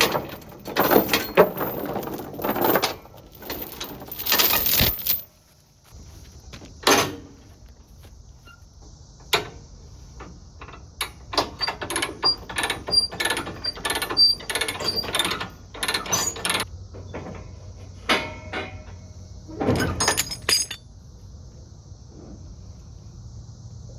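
Steel tie-down chains and binders clanking and rattling as a mini excavator is unchained from its trailer: a string of separate metal knocks, jangles and clicks, busiest and loudest in the first few seconds.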